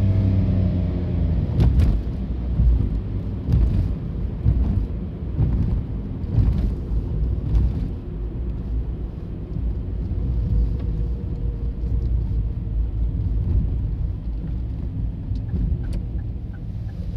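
Diesel railcar passing over a level crossing: a low rumble with sharp wheel clacks about once a second, then the rumble slowly fades as it moves away.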